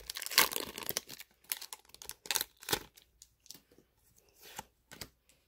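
Foil wrapper of a Pokémon booster pack torn open by hand: a quick run of short rips and crinkles, thinning out to a few faint rustles after about three seconds.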